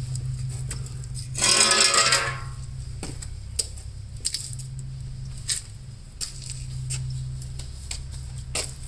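Light metallic clicks and taps from work on a drained automatic transmission, scattered every second or so, over a steady low hum. About a second and a half in, a loud pitched sound lasts about a second.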